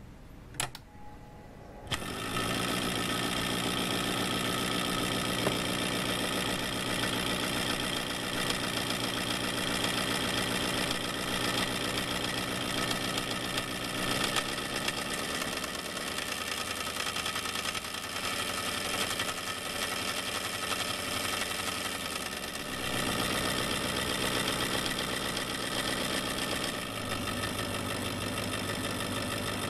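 A click from the bench supply's power switch, then a vintage ANFOE toy electric motor, a single coil driving a star-shaped iron wheel, starts about two seconds in and runs steadily. Its sound shifts a few times as the supply voltage is turned down from about 7 V to 5 V.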